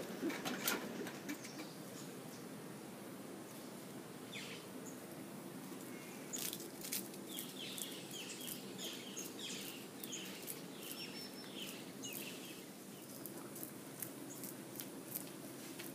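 Leaves and branches rustling and crackling as howler monkeys climb and feed in a tree, with a few sharp snaps near the start. About six seconds in, a bird calls a quick series of short falling chirps, roughly two a second, for about five seconds.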